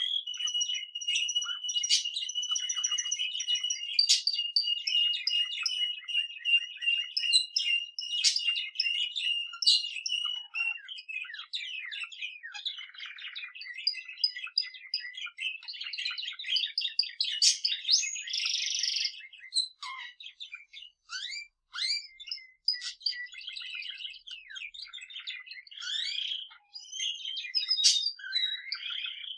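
A budgerigar warbling and a male canary singing together. For about the first ten seconds a long rapid trill holds at one pitch over the chatter, then the song breaks into busy, varied chirping and warbling.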